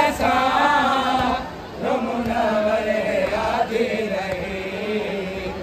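A voice chanting a Muharram mourning recitation in long, drawn-out phrases that slide in pitch, pausing briefly about a second and a half in and again near the end.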